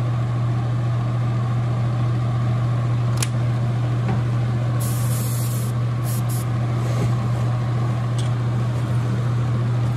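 Spray booth exhaust fan running steadily with a constant low hum and rushing air. Two short hisses of air come about five and six seconds in, and a few light clicks as the metal lure stands are moved.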